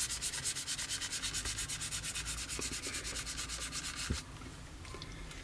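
Kitchen paper rubbed quickly back and forth over the gloss-painted plastic of a scale model kit, wiping off a dried panel wash, in even rhythmic strokes that stop about four seconds in.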